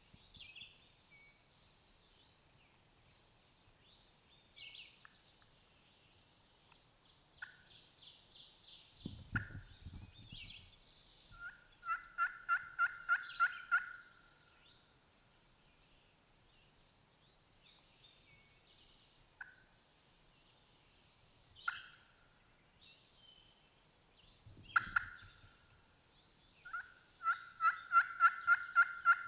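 Turkey yelping: two runs of about ten evenly spaced yelps, one near the middle and a louder one at the end, with single sharp notes scattered between them. Two low thumps come partway through.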